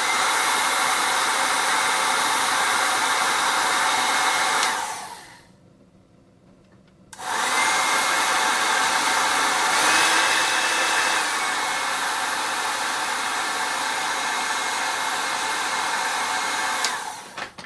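Hot air gun blowing, shrinking heat-shrink tubing over soldered battery-adapter joints: a steady loud rush that runs down and stops at about five seconds, starts again about two seconds later, and runs until it winds down near the end.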